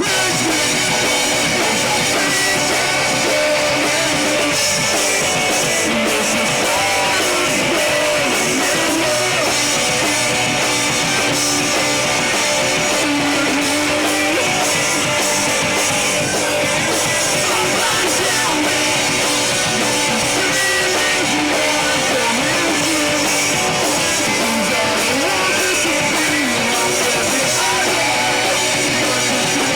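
Live rock band playing a song with electric guitars and a drum kit, loud and steady throughout.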